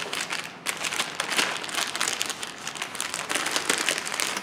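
A clear plastic bag holding multimeter test leads crinkling and crackling in the hands as it is handled, in an irregular run of small crackles.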